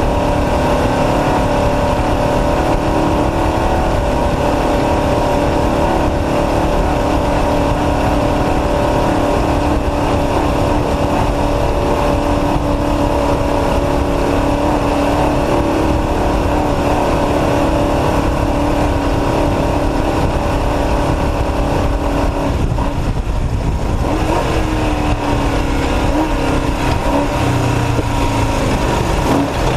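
Off-road race truck's engine running hard at a steady pitch. About two-thirds of the way in it eases off, and the engine note slowly falls.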